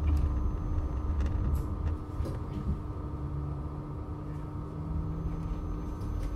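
Adtranz GT6N low-floor tram running: a low rumble with steady electrical hums, getting a little quieter about two seconds in.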